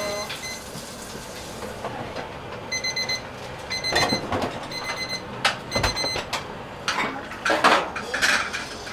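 Electronic kitchen timer beeping in short groups of quick high beeps, about once a second, going off for a few seconds. Utensils and dishes clink and knock alongside, most in the second half.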